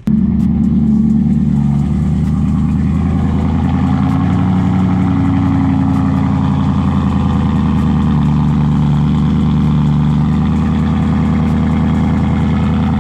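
Straight-piped BMW E92 M3's 4.0-litre V8 idling loudly and steadily, coming in suddenly at full loudness, its pitch shifting slightly a couple of times.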